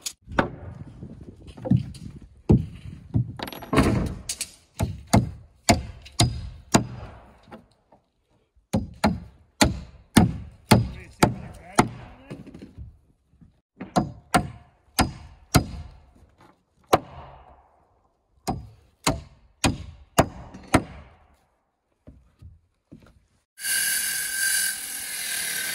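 Hammer blows driving nails into 2x4 wall framing: sharp wooden knocks in quick runs with short pauses. Near the end a circular saw starts and cuts through a 2x4 stud, loud and steady.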